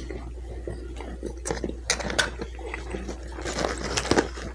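Close-miked chewing of a mouthful of bacon cheeseburger: wet mouth noises and small smacking clicks, busier near the end.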